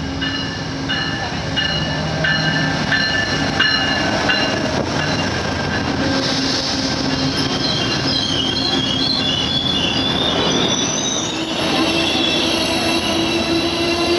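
Passenger train running over the rails with its wheels squealing: thin, high squeal tones come and go over the running noise, then waver up and down in pitch through the second half.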